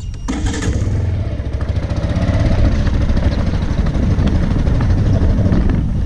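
Motorcycle engine running close to the microphone. It comes in strongly about a quarter-second in and grows louder over the first two seconds as the bike moves off.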